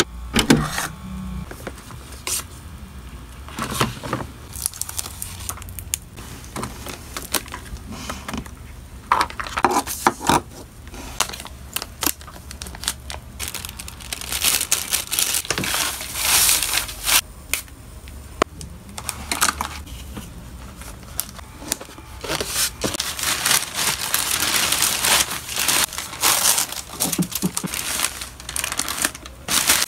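Plastic packaging crinkling and rustling as hands handle pouches and fold a poly mailer, in uneven bursts with occasional sharp taps and clicks.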